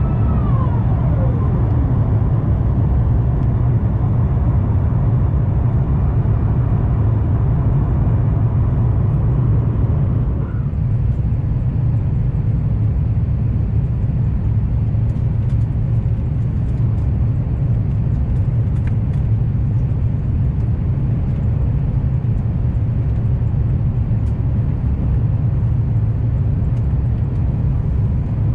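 Steady low rumble of engine and airflow noise inside the economy cabin of an Airbus A350-900 as it descends to land. A whine falls in pitch over the first two seconds, and a fainter steady whine stops about ten seconds in.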